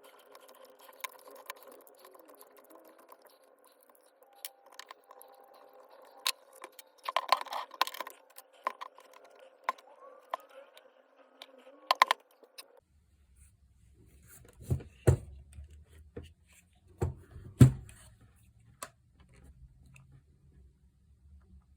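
Small metal clicks and knocks from parts and hand tools being handled while an electric demolition hammer is taken apart. About halfway through, a low hum comes in under the knocks, which grow louder, with a few sharp hard knocks.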